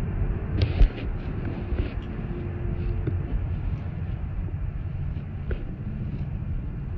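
Automatic car wash machinery heard from inside the car's cabin: a steady low rumble, with a few knocks, the loudest about a second in.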